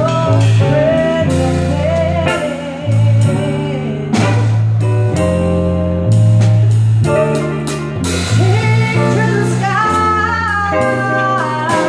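A woman singing a jazz song live, backed by a drum kit, bass and guitar. Her voice rides over held bass notes and steady drum and cymbal strokes.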